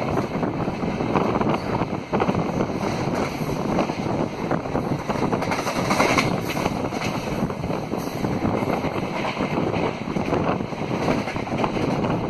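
Rushing running noise of an Indian Railways express's LHB coaches at speed, with wheel and rail clatter and wind buffeting the microphone at an open coach door.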